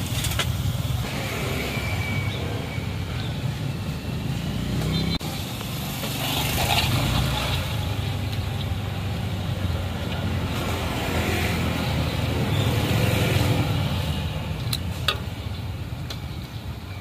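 Roadside traffic: a steady low rumble of passing vehicles that swells and fades, with a sudden drop in level about five seconds in.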